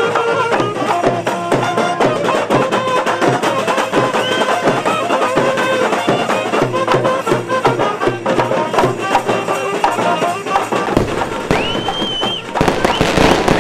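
Street band of saxophones and drums playing a fast, loud folk dance tune over a driving drum beat. Near the end the music gives way to the hiss and crackle of a firework going off.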